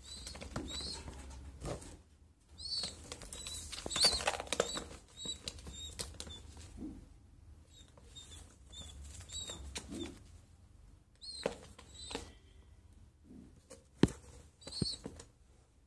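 Domestic pigeons flapping their wings and scuffling in a cramped box, in several short bursts, with short high squeaks between them and one sharp knock near the end.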